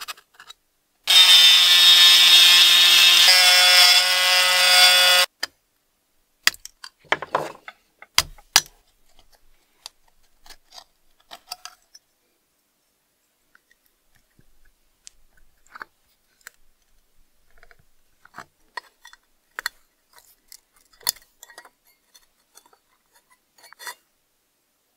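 Small metal parts of an old lantern being pried off and handled. About a second in comes a loud, steady squeal lasting about four seconds that changes pitch partway, followed by scattered light metallic clicks and taps.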